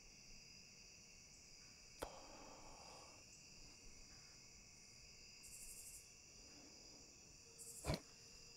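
Faint, steady chorus of crickets and other insects, several even trills at once, with a brief higher pulsing buzz a little past halfway. A sharp click about two seconds in and a louder click near the end stand out over it.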